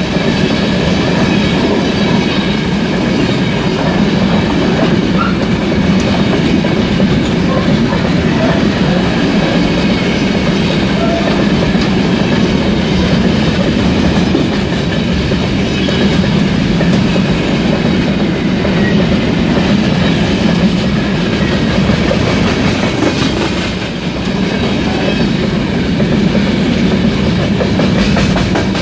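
Railway train running with its wheels clattering over the rail joints, a loud, steady rumble with no breaks.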